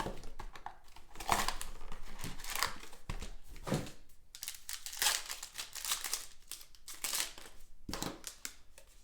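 Trading card packaging being opened by hand: wrappers crinkling and tearing in irregular bursts.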